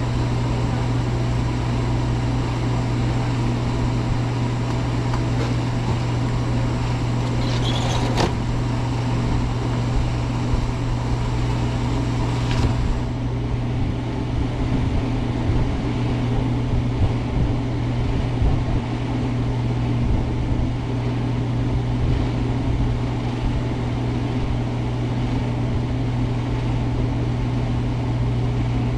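Car engine idling with a steady low hum, heard from inside the car, with a single sharp click about eight seconds in.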